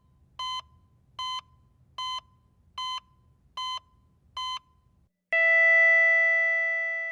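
Six short electronic beeps, evenly spaced about 0.8 s apart over a faint low hum, then, about five seconds in, a sudden loud sustained tone that slowly fades away.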